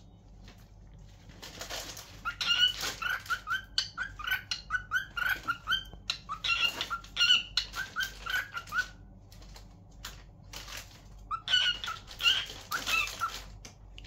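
Lutino cockatiel chattering in a quick run of short chirps, starting about two seconds in and lasting to about nine seconds, then breaking off and starting again for a couple of seconds near the end.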